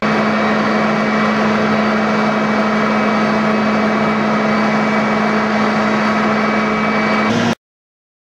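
Fire engine's diesel running steadily to drive its fire pump while pumping water from a canal: a constant, unchanging drone. It cuts off suddenly near the end.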